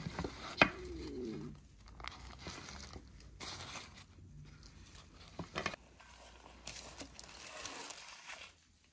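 Baking parchment crinkling and rustling as it is pulled back and handled around a grilled pork joint, with a sharp knock just over half a second in and a few lighter knocks later.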